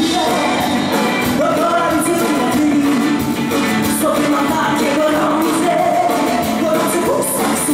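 Live band performing a pop-rock song: a woman singing lead over electric and acoustic guitars.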